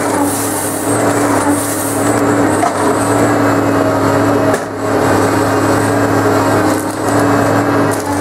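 Forestry harvester running steadily, its diesel engine and hydraulics giving a constant drone while the SIFOR 523 harvester head grips and delimbs a thin stem, with cracking of wood and branches.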